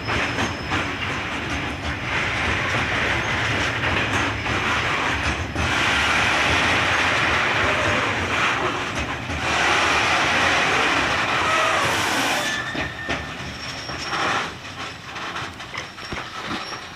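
Freight train's loaded container flat wagons rolling past, wheels clattering over the rail joints with faint wheel squeal. The noise drops away after about 13 seconds as the last wagons go by.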